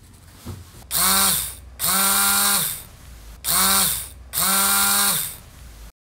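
Rebuilt Yamaha XMAX 300 electric starter motor bench-tested straight off a battery, spinning freely with no load. It runs four times in short bursts of under a second each, whining up to speed and winding down between runs.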